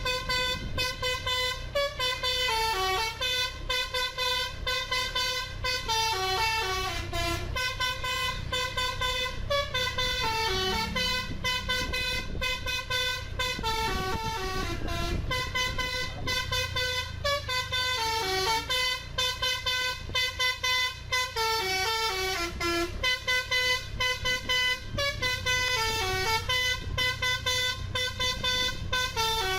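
Indonesian bus telolet horn (a basuri multi-tone horn) playing a melody of stepped falling and rising notes over and over, the tune repeating about every four seconds, with a low rumble underneath.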